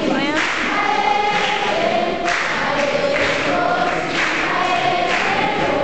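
A large group of voices singing together as a choir, in phrases of long held notes, in a big hall.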